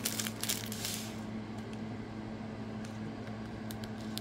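Brief rustling of handled packaging in the first second, then a few faint ticks, all over a steady low electrical hum.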